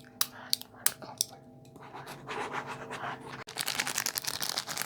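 ASMR trigger sounds: a few sharp taps, about three a second, then from about two seconds in a dense scratching on a surface that grows louder past the middle.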